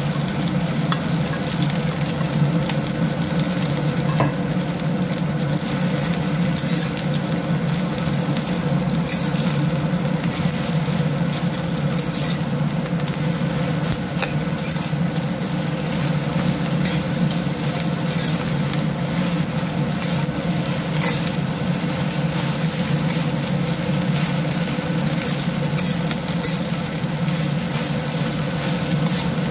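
Rice and egg sizzling in an oiled wok while a metal wok spatula stirs and tosses it, with frequent light scrapes and taps of the spatula on the pan over a steady low hum.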